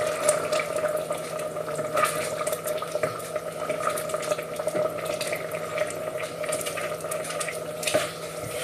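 Risotto simmering in a pan, with many small irregular pops and crackles of bubbling rice and stock over a steady hum.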